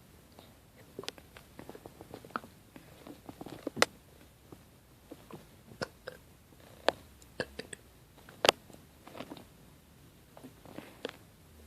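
A person hiccuping: sharp, sudden hiccups a second or more apart, the loudest about four, seven and eight and a half seconds in, among fainter clicks.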